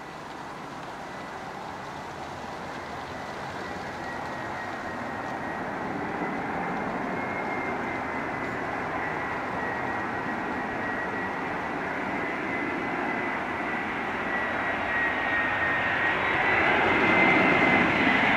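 Airbus A319-111's CFM56 turbofan engines on final approach: a steady jet rumble with a thin high fan whine, growing steadily louder as the airliner comes closer, loudest near the end.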